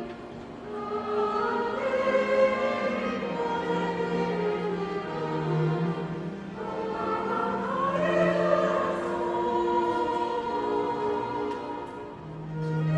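Live ensemble music in a classical style, with singing voices over instruments. It swells and falls back in two long phrases.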